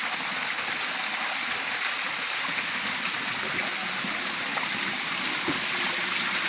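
Steady rushing of flowing stream water, an even, unbroken wash of sound.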